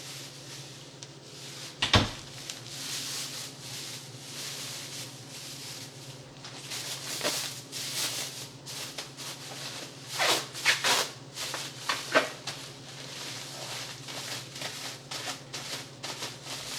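Rustling and crinkling of a plastic bag as food is handled and bagged, over a steady low hum. A single sharp knock comes about two seconds in, and a burst of crinkles and clicks follows around ten to twelve seconds in.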